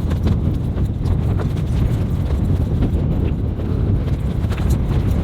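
Strong wind gusting over the microphone, a continuous low rumble, with scattered light knocks and clicks through it.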